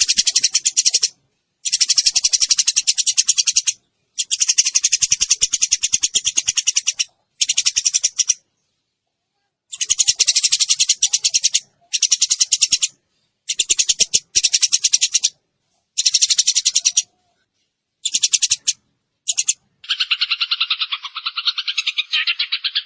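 Recorded birdsong of Eurasian tree sparrows (burung gereja) mixed with platuk beras: repeated bursts of rapid, high chattering trills, each lasting one to three seconds with short breaks. Near the end a lower, unbroken pulsing chatter takes over.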